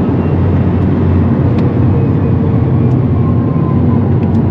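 Steady road, tyre and wind noise inside the cabin of a Rimac Nevera, an all-electric hypercar, driving at speed with no engine note. A faint thin whine sits over the rumble.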